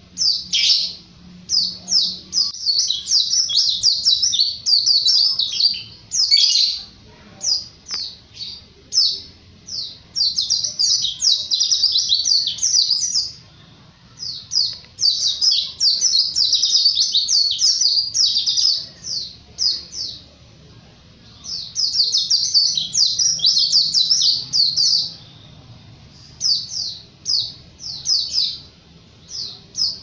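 Pleci (white-eye) singing in full voice: fast, high twittering made of rapid chirps strung into runs of one to four seconds, with short pauses between runs.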